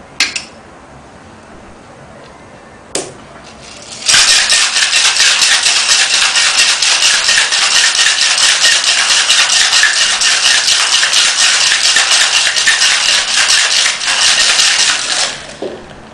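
Ice being shaken hard in a stainless steel cocktail shaker: a couple of metal clicks as the shaker is closed, then about four seconds in a loud, fast, steady rattle of ice against the metal that goes on for about eleven seconds and stops abruptly.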